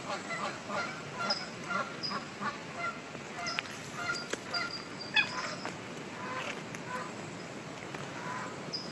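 Frogs calling: many short, hoarse chorus frog calls mixed with little high beeping notes, which are taken for baby bullfrogs. The calls are thickest at first and thin out after about five seconds, with a single sharp tap a little past halfway.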